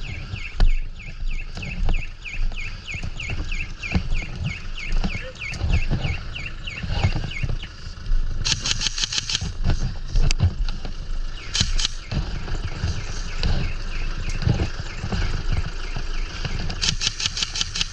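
Airsoft guns firing short full-auto bursts of rapid clicks: one about halfway through, a brief one later, and another near the end. A bird chirps quickly and repeatedly at first, over a steady low rumble of wind and movement on the microphone.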